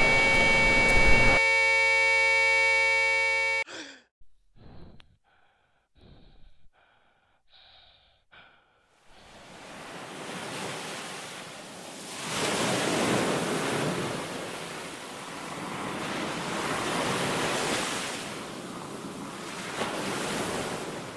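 Surf on a beach, waves washing in and falling back, swelling and fading several times from about nine seconds in. Before it, a steady held tone cuts off abruptly about four seconds in, followed by a few faint short sounds.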